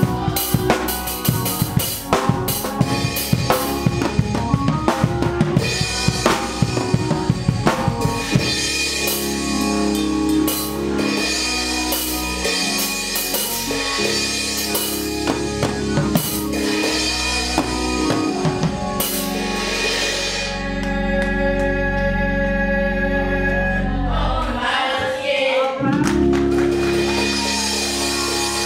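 Drum kit with chrome-shelled drums played in a rapid run of drum and cymbal hits. From about eight seconds in, the hits thin out under music with a held low bass line and sustained chords.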